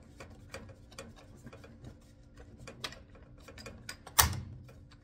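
Small irregular clicks and taps of a RedMax chainsaw's plastic top cover being worked onto the saw, with one louder knock about four seconds in.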